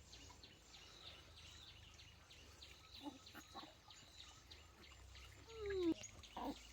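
Faint background bird chirping, short repeated chirps. Near the end a brief voice rises and falls in pitch, the loudest sound here.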